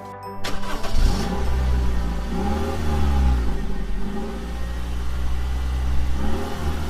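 Car engine running and accelerating, with road rumble; it starts abruptly about half a second in, and its pitch rises and falls a few times.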